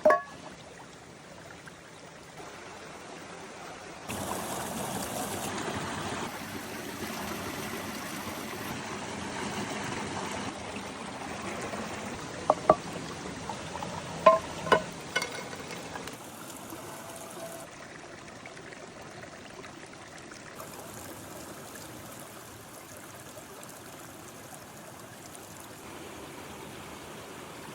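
Water running in a stream, a steady rushing trickle that grows louder for a stretch and then settles. A few short sharp clicks sound about halfway through.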